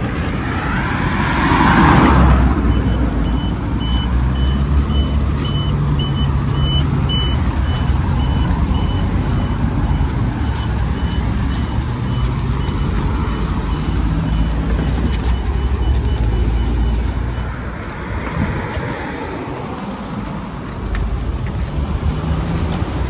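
City road traffic: car engines and tyre noise, with a vehicle passing about two seconds in. A short, high electronic beep repeats about twice a second from a few seconds in until about two-thirds of the way through.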